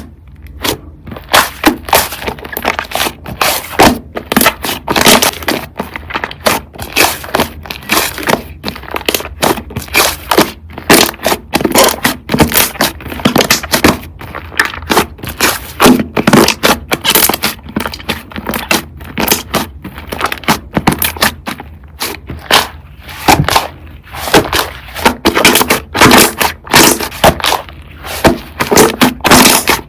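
Slime being squished and pressed by hand, giving a dense run of irregular crackling and popping clicks.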